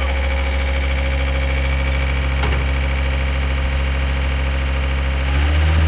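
John Deere 329D compact track loader's diesel engine idling steadily, then picking up speed slightly near the end.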